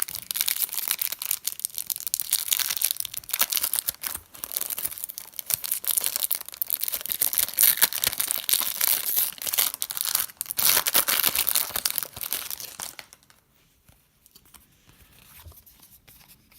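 Foil or plastic trading card wrappers being torn open and crinkled, a dense run of crackling that stops about 13 seconds in, followed by faint handling of the cards.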